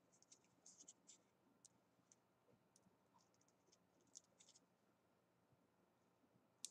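Near silence, with faint scattered crackles of fingers peeling the backing off a strip of low-tack frisket masking film, and one sharper click near the end.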